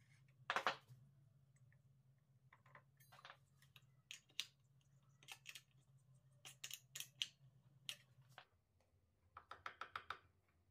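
Faint scattered metal clicks and clinks of an open-end wrench working the bolts on an angle-grinder sharpening jig, ending in a quick run of about eight clicks as the table saw blade is turned by hand, its teeth ticking past the jig's indexing finger.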